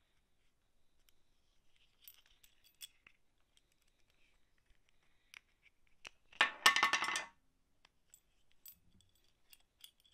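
Faint ticks of small parts being handled, then about six seconds in a brief metallic rattle of rapid clinks lasting about a second. It comes from the steel pushrod and clevis of a clutch master cylinder knocking about while a rubber boot is worked onto it.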